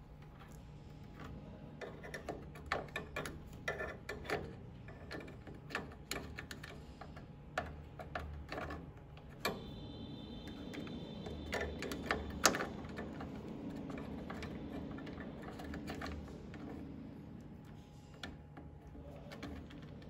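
Irregular clicks and light knocks over a steady low hum, with one sharper click about twelve seconds in.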